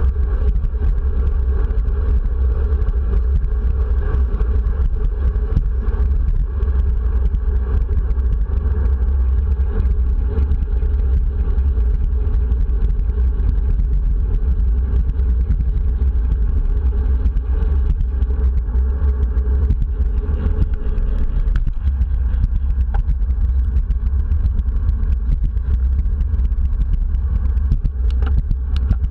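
Wind buffeting a handlebar-mounted action camera's microphone on a road bike in motion, a loud steady low rumble mixed with road and tyre noise. A higher hum in it drops away about three quarters of the way through.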